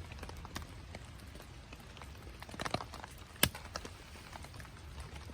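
Wood fire crackling, with scattered pops and snaps; a small cluster comes a little before three seconds in and the sharpest snap about half a second later.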